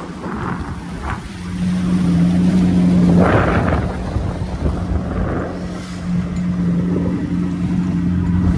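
Old two-stroke outboard motor running steadily at a constant pitch, driving a small skiff, under wind noise on the microphone and water noise. The motor gets louder about one and a half seconds in, and a brief loud rush of noise comes about three seconds in.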